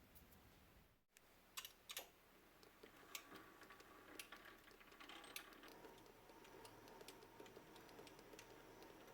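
Near silence, with faint scattered light clicks and taps.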